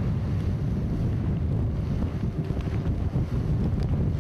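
Strong wind buffeting the microphone on a small open motorboat running through rough, choppy sea, with a steady low rumble and the rush of water around the hull.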